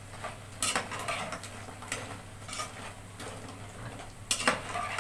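A metal spoon clinking and scraping against a pot, several separate clatters, as zalabia dough balls are stirred in hot frying oil, over a faint sizzle.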